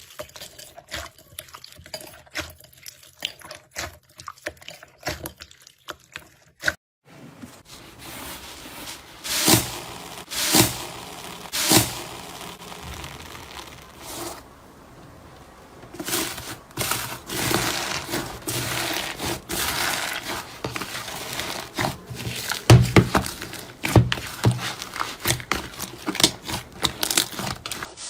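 Slime being handled by hand: soft sticky clicks at first, then, after a change about seven seconds in, louder wet squishing with repeated sharp pops and snaps.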